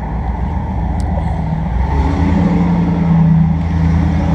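Rheem 5-ton straight-cool central air conditioner condensing unit running: a steady low hum from the compressor and fan, with a pitched hum that swells louder about halfway through.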